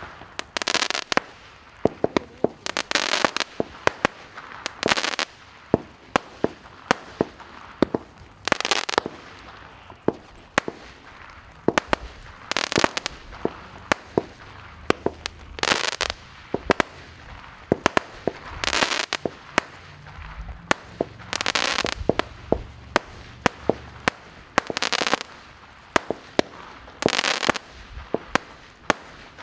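Magnum Series Moon Cake, a Category 2 consumer firework cake, firing a stream of small shells: sharp cracks and pops at irregular spacing, with patches of crackling breaking out about every three seconds.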